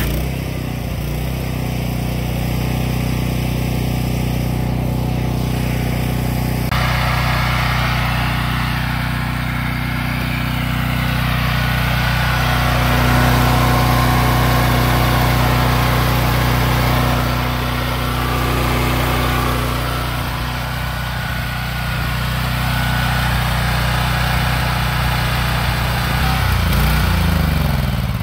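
Honda GX-series engine of a Simpson PS4240 gas pressure washer running steadily, with water spray hissing from the wand for the first several seconds. With its fuel valve shut off, it runs on until near the end, when its pitch falls as it runs out of fuel and dies.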